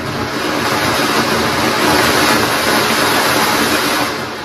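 Anar ground fountain firework spraying sparks with a loud steady hiss that swells to its peak and starts to fade near the end.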